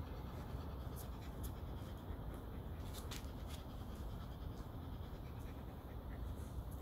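A brush scratching in repeated strokes through a Shetland Sheepdog's thick, shedding coat, with a few short ticks, over a low steady rumble.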